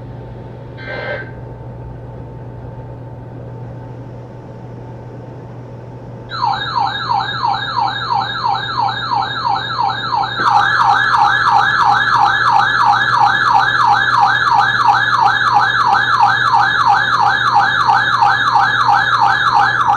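Weather-radio alert siren: after a few seconds of faint hum, a warbling electronic alarm tone starts, about four warbles a second. About ten seconds in a second, louder warbling tone joins it. This is the receiver sounding its alarm for an incoming severe thunderstorm warning.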